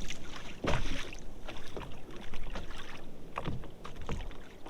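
Water splashing and slapping around an ocean kayak, in irregular slaps with the sea's low wash beneath.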